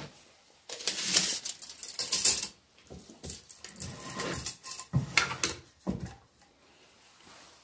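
Clatter and scraping of a steel tape measure being pulled out and laid across a rough-sawn oak board, in several short irregular bursts.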